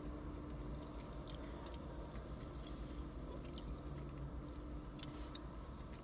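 Faint chewing of soft, chewy Sour Patch Kids candy, with small mouth clicks and a sharper click about five seconds in, over a steady low hum in the car cabin.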